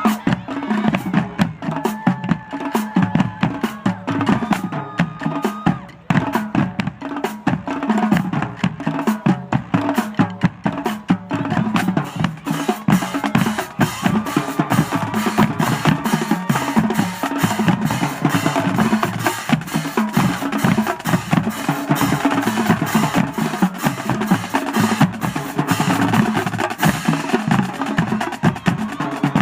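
Marching drumline playing a fast cadence: snare and bass drums in rapid, dense strokes and rolls, with sharp clicky rim or stick hits.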